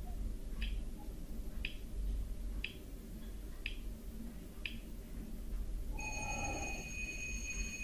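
Quiz countdown-timer sound effect: five short high ticks, one a second, then about six seconds in a steady high ringing tone starts as the time-up signal.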